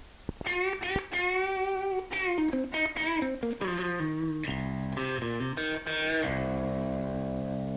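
Music: a guitar plays a lead line of bent, wavering notes, then a few chord changes, and ends on a full chord held and ringing from about six seconds in.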